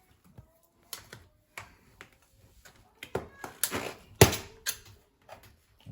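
Metal spoon handles, used as tyre levers, clicking and knocking against a bicycle wheel rim as the tyre bead is prised off. Scattered sharp taps that come thicker after about three seconds, with one loud knock about four seconds in.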